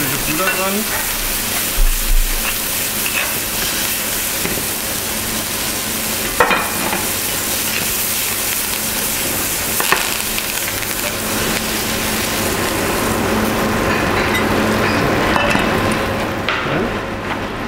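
Porcini mushrooms frying in a pan: a steady sizzle while they are stirred, with a couple of sharp clicks along the way. The sizzle thins out near the end.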